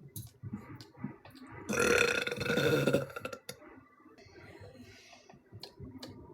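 A woman's loud, drawn-out burp lasting about a second and a half, starting about two seconds in, with a few faint clicks around it.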